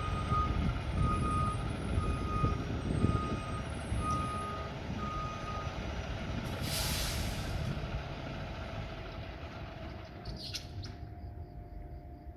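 Fire truck backing up: its reversing alarm beeps steadily over the diesel engine's low rumble and stops about six seconds in. Then the air brakes let out a loud hiss, with a second, shorter hiss near the end.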